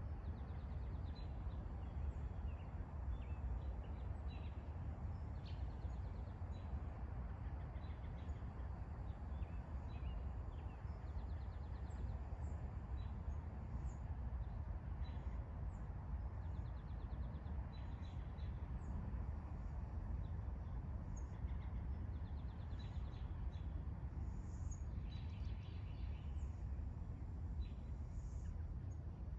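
Outdoor ambience of a steady low rumble with birds chirping and trilling on and off throughout.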